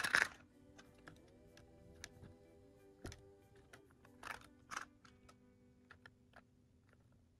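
Hard plastic toy clicking and knocking as it is handled. The loudest knock comes right at the start and a few more follow, with lighter ticks in between, over faint background music.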